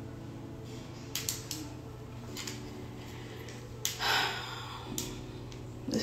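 Bed Head hair crimper clamping sections of hair, with a few light clicks as the plates close and open, and a rustle about four seconds in, over a steady low hum.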